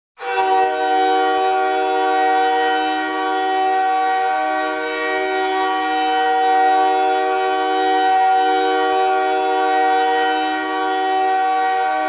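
The Montréal Canadiens' goal horn, the arena's signal for a home goal, blowing one long unbroken blast. It is a chord of several steady tones sounding together, starting a moment in and swelling slightly now and then.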